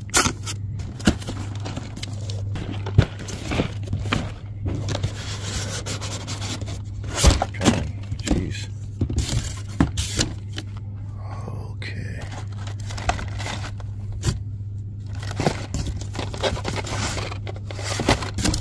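Blister-packed Hot Wheels cars being sorted through in a cardboard case: plastic packaging scraping, rustling and clacking with many irregular sharp clicks, over a steady low hum.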